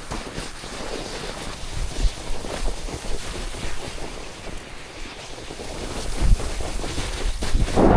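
Wind buffeting the microphone as a steady rushing rumble, with a few dull low thumps mixed in.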